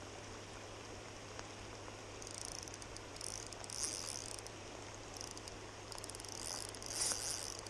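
KastKing Zephyr 1000 spinning reel buzzing with rapid high-pitched clicks in two spells of about two seconds each, as a hooked chinook salmon is fought on a bent light rod. A steady low hiss runs underneath.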